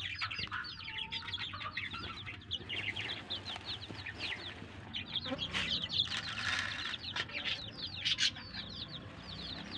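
A brood of young chicks peeping without pause in quick, short, high cheeps that fall in pitch. About six seconds in comes a brief rush of grain poured into a plastic feeder.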